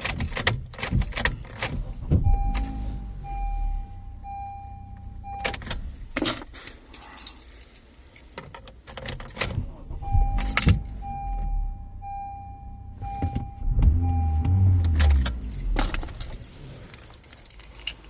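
Car keys jangling and clicking in a Honda Civic's freshly repaired ignition switch as it is worked, with the car's chime beeping in a repeated series twice.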